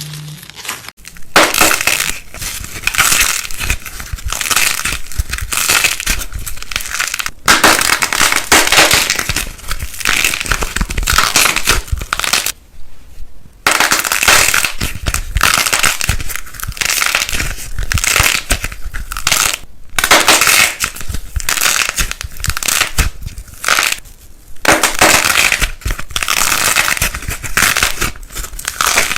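Dense crunching and crackling of something being crushed, in stretches of a few seconds that cut off abruptly between clips.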